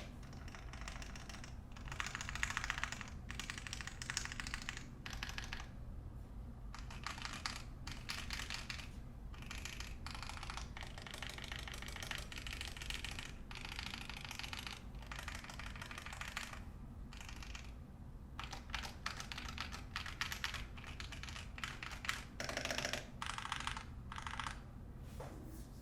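Typing on a mechanical keyboard: a KBDFans 5Degree acrylic 60% case with an aluminium plate and Fekker Holy Panda tactile switches lubed with Tribox 3203. Keystrokes come in quick runs broken by short pauses.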